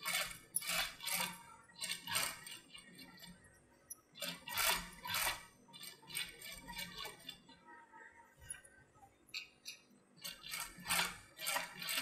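Sewing machine stitching in short bursts of rapid clattering with pauses between: four runs, the longest about four to five and a half seconds in and another near the end. It is sewing hand-embroidery thread fed from the bobbin, the bobbin case loosened so the thick thread runs freely.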